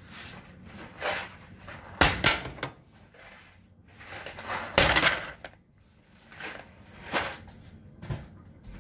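Someone rummaging in a kitchen for boxes of macaroni and cheese: a string of knocks and clatters, two sharp ones close together about two seconds in and a longer rattling one about five seconds in, with lighter knocks around them.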